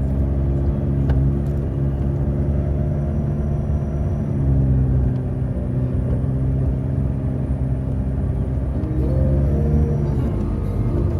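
McLaren 12C twin-turbo V8 engine and road rumble heard from inside the cabin while driving, running steadily, with the engine note shifting in pitch about nine seconds in.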